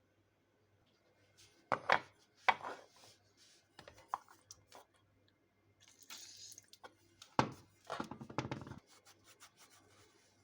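Small parts being handled on a work surface: a few sharp knocks and clatters, with rubbing and scraping between them.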